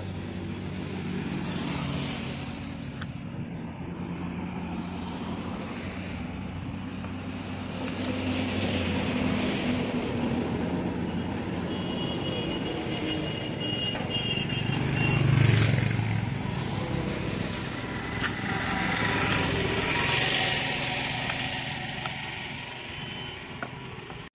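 Motor vehicles going past, their engine noise swelling and fading several times, loudest about 15 seconds in.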